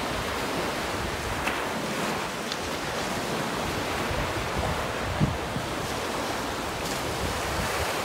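Small waves breaking and washing up on a sandy beach, a steady wash of surf with a slight swell about five seconds in, and some wind rumble on the microphone.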